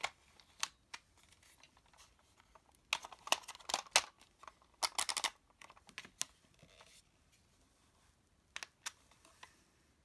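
Hard plastic parts of the Earth Handle toy weapon clicking and clattering as it is handled and the sword blade is fitted and snapped into place. Scattered sharp clicks, with a dense run of them about three to four seconds in and another around five seconds.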